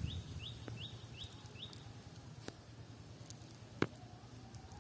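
A bird calling a quick series of short, high rising chirps, about two or three a second, that stops about two seconds in. After it come a few isolated sharp clicks.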